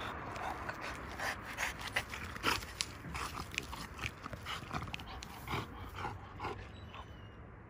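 French bulldog gnawing at a birch log, its teeth scraping and crunching the bark in irregular clicks, with snuffling, panting breaths. The sounds thin out near the end.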